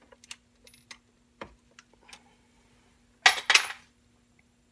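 Metal parts of a Dillon 1050 reloading press and its bullet feed die being handled by hand: a few light clicks, then a louder cluster of sharp metallic clinks about three seconds in.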